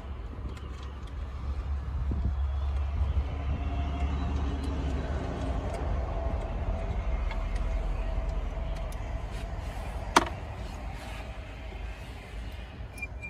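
Hand tools working the bolts of a car's turbocharger: scattered small metallic clicks and one sharp metal clink about ten seconds in, over a low steady rumble.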